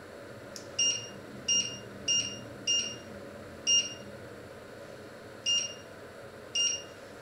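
Touch-control panel of an electric glass-ceramic hob beeping at each finger press as a setting is entered: seven short, high two-tone beeps at uneven intervals, the last near the end.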